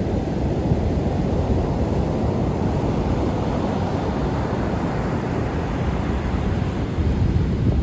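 Sea surf rushing steadily, a continuous noise heaviest in the low end, with wind buffeting the microphone.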